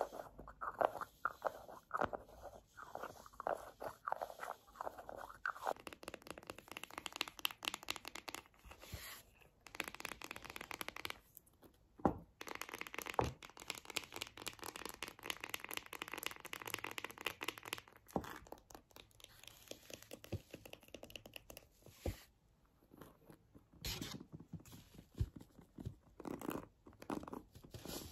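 Close-miked ASMR handling sounds, crisp scratching and crunching. First a small white block is tapped and scratched in quick strokes about three a second. Then a round hairbrush is handled, its bristles scratched and rubbed in a dense, continuous scratching, with more bursts of strokes near the end.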